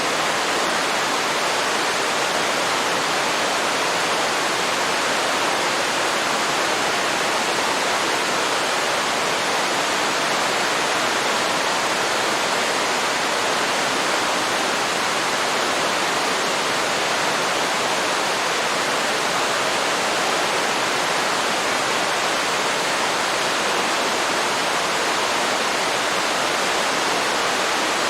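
Waterfall pouring into a river: a steady, unbroken rush of falling water, even in level throughout.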